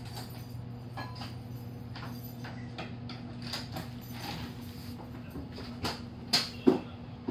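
Steady low hum from the onboard equipment of a stopped electric train, heard inside the passenger car, with scattered light creaks and clicks. Two sharper knocks come near the end.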